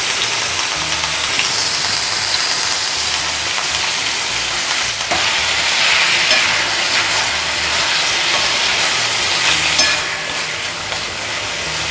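Potato sticks sizzling in hot ghee in a steel kadhai while a wooden spatula stirs and tosses them. It is a steady frying hiss with light scraping and clicks of the spatula against the pan, a little louder about halfway through.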